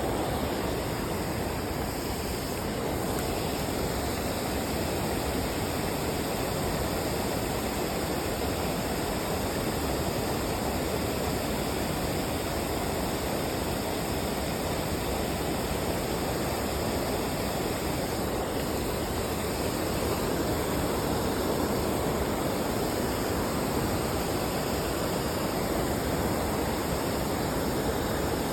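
Creek water running steadily, a constant rushing hiss with no change throughout.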